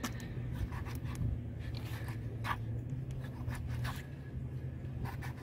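A kitchen knife slicing raw mullet on a cutting board: short scratchy strokes and light taps of the blade at irregular intervals, over a steady low hum.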